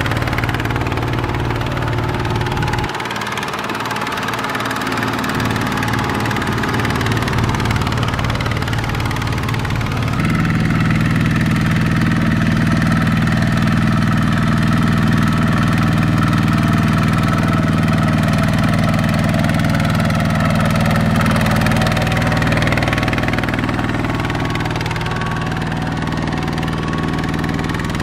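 Single-cylinder diesel engine of a two-wheel walking tractor running steadily while it drags a loaded trailer of rice sacks through mud. Its note shifts about three seconds in, and it gets louder about ten seconds in.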